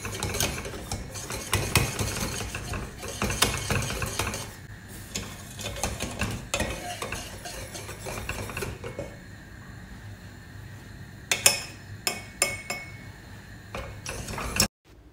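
Wire whisk stirring cocoa syrup in a stainless steel saucepan, its wires scraping and clinking against the pan. The whisking is busy at first, then thins out after about nine seconds into a few sharp taps, and the sound cuts off abruptly just before the end.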